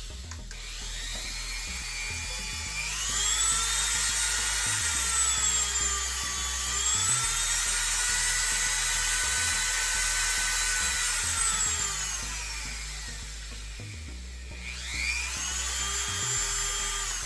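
Dremel rotary tool motor running free with a high whine, its speed turned up and down: it speeds up in the first few seconds, dips and climbs again, slows right down past the middle, then speeds up again near the end.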